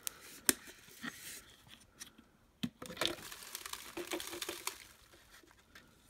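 Sharp plastic clicks and knocks as the clear dust bin of a Hart cordless stick vacuum is handled and worked open, the loudest about half a second in. Then a stretch of rustling as dust and hair are pulled out of the bin over a plastic bag.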